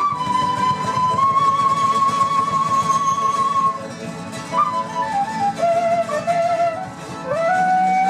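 Live folk music: a flute plays a slow melody with vibrato over strummed acoustic guitars. It holds one long note, falls through a short phrase, and rises to another held note near the end.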